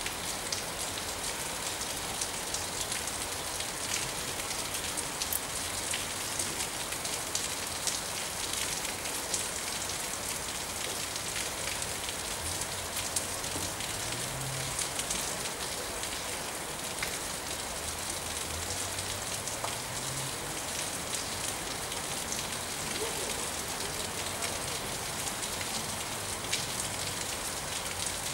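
Steady rain falling, a continuous hiss dotted with many small drop ticks. A faint low hum rises twice in the middle.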